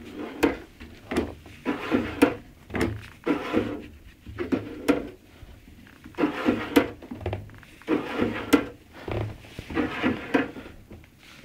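Plastic scraping and clicking in short, irregular strokes as the exercise bike's pedal crank is turned by hand. The crank's plastic is rubbing against the inside of the pedal unit's plastic casing, a fault in the newly assembled machine.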